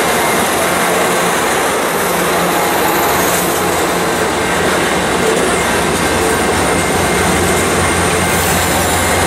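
Amtrak Pacific Surfliner passenger train rolling past close by: a steady, loud rumble of steel wheels on the rails with faint high squeals. A low engine hum grows stronger near the end as the locomotive comes past.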